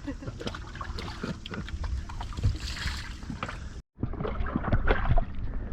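Rainwater sloshing in a flooded dinghy, with small knocks and splashes against the hull. There is a brief abrupt break about four seconds in.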